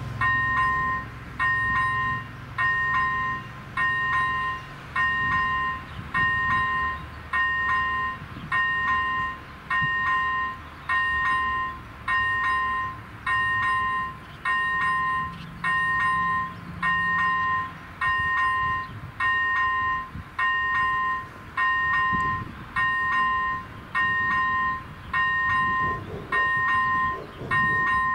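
Level-crossing electronic warning bell ringing at a steady rhythm, a short pitched ding about four times every three seconds, while the crossing's red lights flash to warn of an approaching train. A low rumble runs underneath for the first half.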